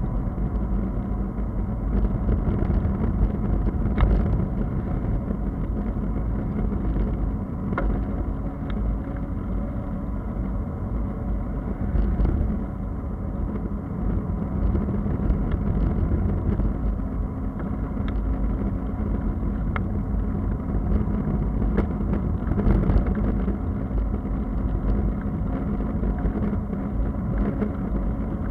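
Steady low rumble of wind on the microphone and bicycle tyres rolling on asphalt, from a bike-mounted camera, with scattered small clicks and knocks from the bike and mount.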